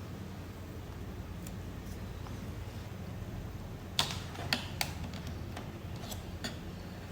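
A handful of short, sharp clicks and taps in the second half, over a steady low hum.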